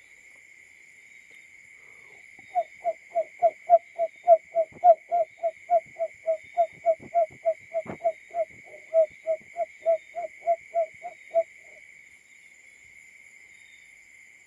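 Simulated call of a barred buttonquail, the call the uploader labels as the male's: a long, evenly paced series of about thirty low hooting notes, roughly three a second, that starts a couple of seconds in and stops a few seconds before the end. A steady high insect trill, like crickets, runs underneath.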